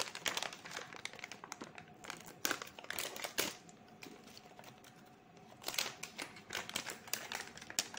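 Foil anti-static bag crinkling and rustling as it is handled to get a hard disk out of it. The crinkling comes in two spells, with a quieter pause in the middle.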